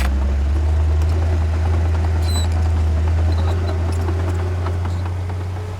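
Heavy diesel construction machinery running steadily with a deep engine drone, with scattered light clicks and clanks over it.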